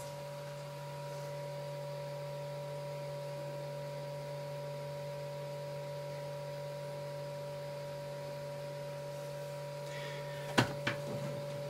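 Steady machine hum: a low drone with two higher fixed tones over it. Two sharp knocks about a second before the end.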